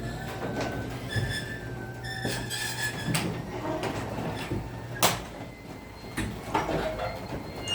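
A Genie 3155D belt-drive garage door opener's motor hums steadily as the door travels down, with squeaky high tones in the first few seconds. About five seconds in, a sharp knock comes as the motor hum stops: the door meeting the 2x4 laid under it to test the safety reverse.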